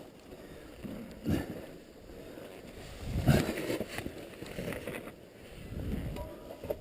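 River water sloshing and splashing around legs as people wade across a river, in irregular surges.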